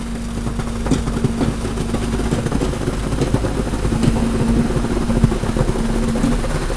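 Wet concrete pouring out of a crane-hung concrete bucket into a foundation form: a dense, gritty splattering with a few sharper knocks, over the steady hum of a construction machine's engine.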